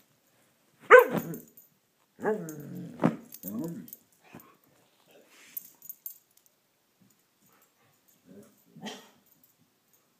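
Siberian husky "talking": a sharp yelp-like call about a second in, then a longer wavering woo-woo call of two or three parts, and a short low grumble near the end.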